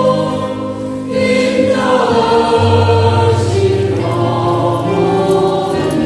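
Choir singing a Catholic hymn in long, sustained notes, with a steady low part that shifts pitch every second or two.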